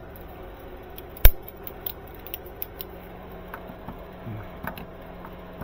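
Small steel parts of a hot foil stamping machine's plate holder being handled and fitted: one sharp metallic click about a second in, then a run of light clicks and taps.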